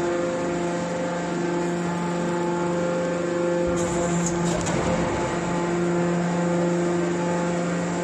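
Hydraulic pump of a scrap metal baler running with a steady hum, as the press pushes a compressed bale of metal turnings out of its chamber. The noise shifts briefly a little before halfway.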